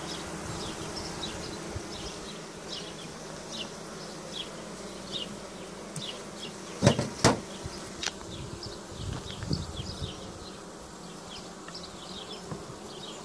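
Honeybees buzzing steadily in an open hive. About seven seconds in, two sharp knocks, with a few lighter ones after, of a metal hive tool against the wooden frames.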